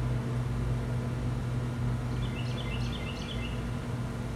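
A steady low machine hum, with a bird chirping a quick string of short notes from about two seconds in.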